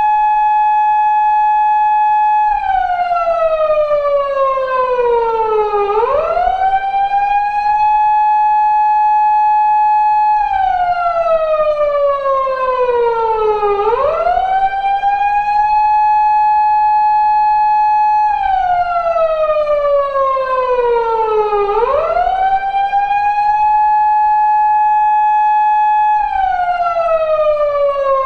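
Japanese police car siren of the kind used on 170- and 180-series Toyota Crown patrol cars, reproduced as a sound effect, wailing in a slow eight-second cycle. Each cycle sweeps quickly up, holds a steady high tone for about four seconds, then slides slowly down before sweeping up again. About three and a half cycles are heard.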